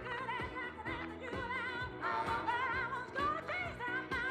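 Pyromusical soundtrack: music with a singing voice wavering in strong vibrato, in an operatic style, over a sustained accompaniment.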